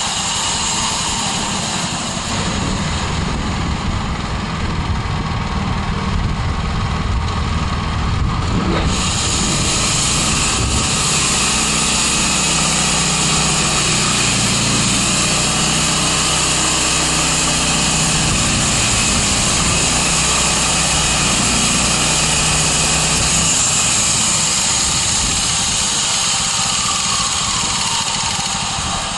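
Band sawmill running on its 13 HP Honda single-cylinder petrol engine, a steady engine sound. About a third of the way in, a brighter hiss comes in over it.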